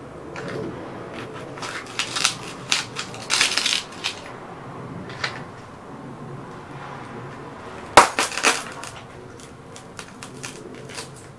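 Cowboy boots stomping on vintage glass radio vacuum tubes on a concrete floor, the glass cracking and crunching underfoot. A cluster of sharp crunches comes about two to four seconds in, and the loudest single crack comes near eight seconds, followed by smaller crackles of broken glass.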